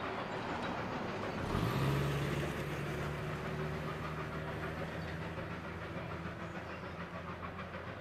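Narrow-gauge train running on the rails, with a steady low drone coming in about a second and a half in and slowly fading away.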